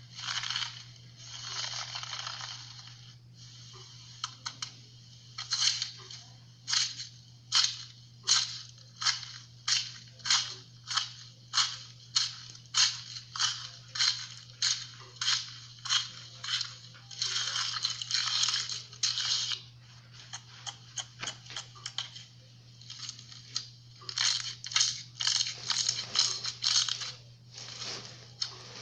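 Slime being squeezed and pressed by hand, giving a series of crisp crackling pops about two a second, with longer runs of continuous crackling near the start, a little after the middle, and near the end.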